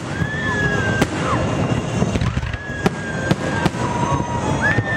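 Aerial fireworks shells bursting in a display: a string of sharp bangs over a continuous crackle, with several high whistles that each hold for about a second and then drop.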